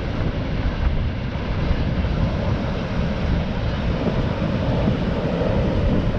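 Steam vent (fumarole) of a geothermal field blowing steam with a steady, loud rushing hiss.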